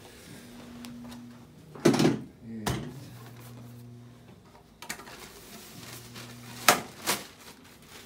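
Padded chiropractic adjusting table being reset: a heavy clunk about two seconds in, then sharp clicks and knocks as its sections are set back in place.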